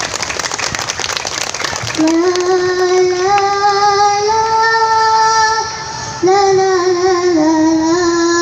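Rapid percussion hits for about two seconds, then a child singing long held notes through a microphone and loudspeaker, in two phrases with a short break near the middle.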